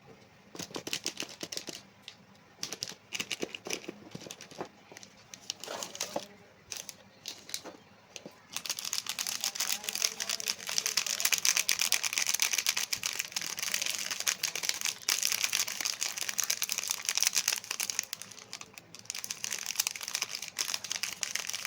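A cookie packet crinkling as it is handled and opened. For the first few seconds there are scattered crackles, then about a third of the way in dense, continuous crinkling sets in, pausing briefly near the end before resuming.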